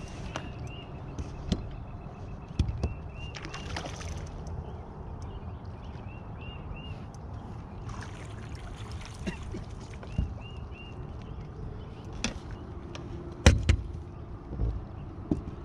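Water splashing and sloshing beside a fishing boat as a hooked white bass is fought and netted, over a steady low rumble. A few sharp knocks on the boat come through, the loudest about 13 seconds in.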